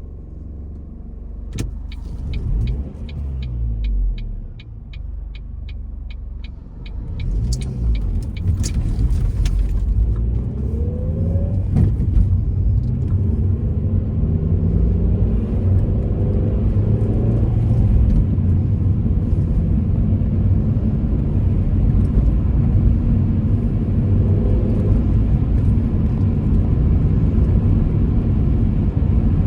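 A 23-year-old Ford Focus: a steady run of quick ticks for about five seconds over a low idle, then the car pulling away, engine and road noise rising and holding steady as it drives.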